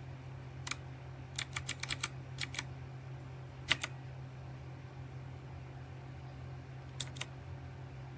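Keys being typed on a Redragon K552 mechanical keyboard with red linear switches: a quick run of about eight keystrokes, a couple more near the middle, and two near the end. A steady low hum runs underneath.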